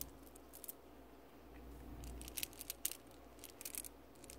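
Glass decorative marbles clicking and clinking against each other inside a mesh bag as it is lifted off the peg and handled, in two short clusters about two and three and a half seconds in.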